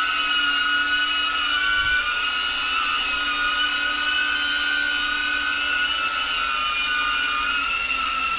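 DJI Avata FPV drone's motors and propellers in flight, a steady high whine that wavers slightly in pitch as the throttle shifts.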